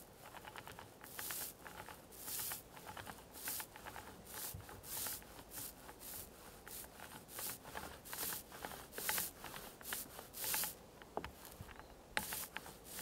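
Small foam paint roller rolled back and forth over bare wooden cabin-roof planking, laying on a coat of epoxy: a rubbing swish with each stroke, about one or two a second, with faint clicks and a short break near the end.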